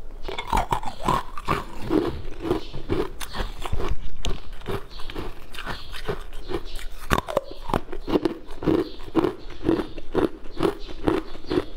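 Someone biting and chewing frozen coloured ice cubes close to the microphone: a dense run of sharp crunches and cracks, several a second.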